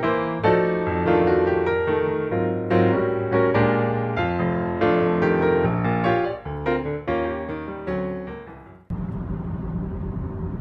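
Piano music, single notes and chords struck one after another, fading away after about eight seconds. About nine seconds in it cuts to the steady hum of a car driving on a highway, heard from inside the car.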